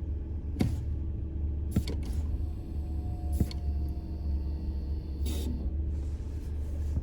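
Toyota 4Runner standing still with a steady low rumble and a faint, steady tonal squeal: the stationary vibration-squeal from the brakes. Four brief clicks are spread through it.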